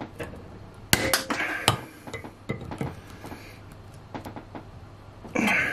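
Knipex 160 mm diagonal cutters straining on a hardened steel drywall screw: a few sharp metallic clicks as the jaws bite, the loudest about a second in and again shortly after, then a brief louder noise near the end.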